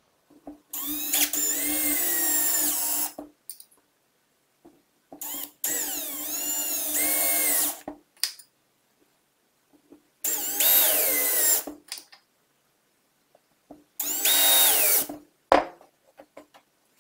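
Cordless drill-driver driving screws through the flanges of concealed cup hinges into a door panel, in four short runs. The motor whine rises in pitch as the trigger is squeezed and drops as each screw seats.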